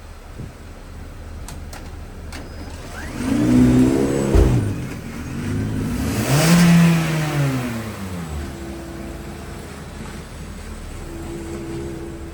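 A car engine revving up and easing off twice, its pitch climbing then falling each time, over a steady low engine rumble.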